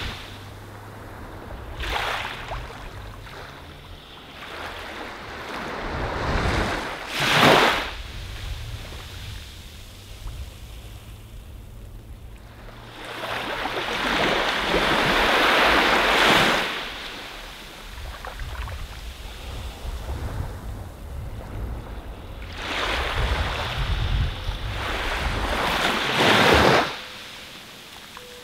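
Ocean surf washing onto a sandy beach. The wash swells up and falls away several times, in short surges early on and longer rushes in the middle and near the end.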